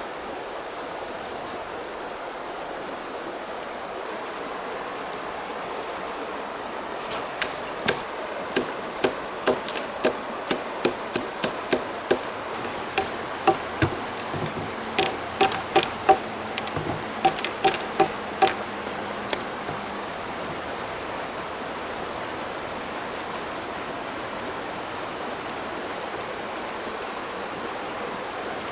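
A river flowing steadily. From about seven seconds in until near twenty seconds, about two sharp knocks a second sound, each with a brief ringing note: willow wood being chopped or hammered while building a grill frame.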